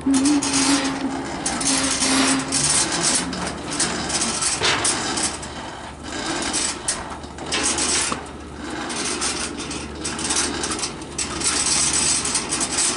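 Electric winch on a car-hauler trailer running, its motor and gears whirring as it winds in the taut cable, the sound rising and falling under the load. A steady low hum runs underneath.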